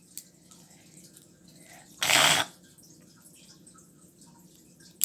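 A person sneezing once, a short loud burst about two seconds in, amid faint handling sounds.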